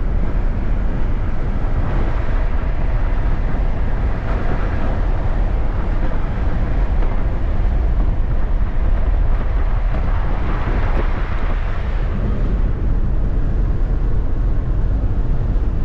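Steady road and wind noise of a car travelling at motorway speed, with a strong low rumble.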